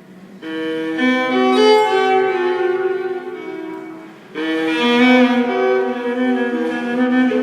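Background music of bowed strings, violin and cello, playing slow sustained notes; a phrase enters about half a second in, fades, and a louder one comes in sharply about four seconds in.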